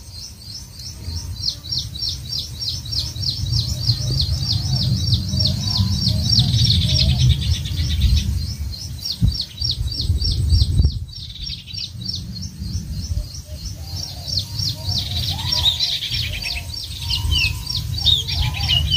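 Birds chirping: a steady, rapid series of high chirps, several a second, with a few short falling calls near the end. A low rumble runs underneath.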